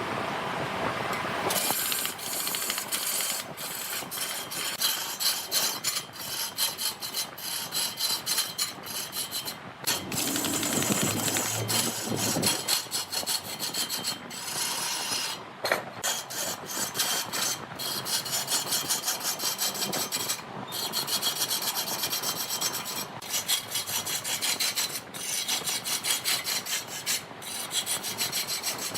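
A cutting tool scraping against a redwood log spinning on a large wood lathe: a rough, continuous rasping, broken by frequent short gaps.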